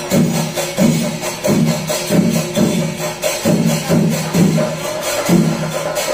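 Kerala temple festival percussion ensemble playing: a steady rhythmic pattern of drum strokes and clashing cymbals over a repeating low pitched figure.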